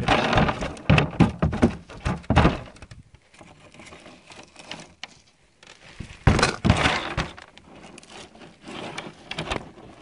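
A freshly landed largemouth-type bass flopping on the plastic floor of a small boat: a rapid run of thumps and knocks for about three seconds, a second bout of thrashing about six seconds in, and a few lighter knocks near the end.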